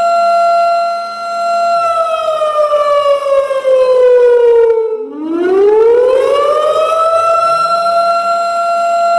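Warning siren sounding a loud, steady tone that slides slowly down in pitch over about three seconds, drops out briefly about five seconds in, then climbs back up and holds steady again, in a wailing rise-and-fall.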